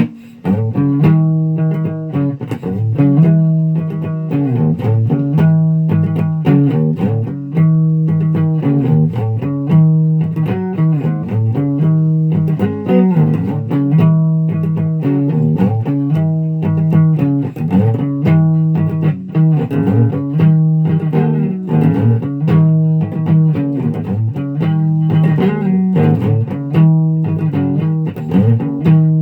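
Guitar played through an amplifier, a plucked riff repeated over and over at a steady tempo.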